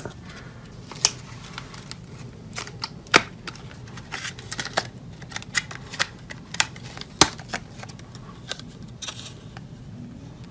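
A CPU's clear plastic clamshell being handled and opened: a scatter of sharp plastic clicks and crackles, with louder snaps about one, three and seven seconds in.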